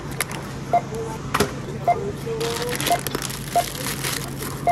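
Supermarket self-service checkout scanners giving short, single, same-pitched beeps about once a second, with a plastic produce bag crinkling as it is handled over the scanner in the middle, over a steady low hum.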